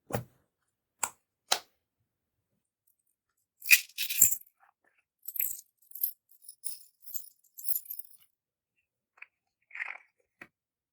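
Separate sharp clicks and clacks, with a louder cluster about four seconds in, then a run of small crackling pops as clear slime is pressed and mixed by hand, and a few more clicks near the end.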